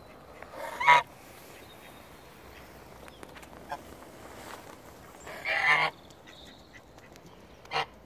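Geese honking: one loud honk about a second in, a longer honk around the middle, and a short honk near the end.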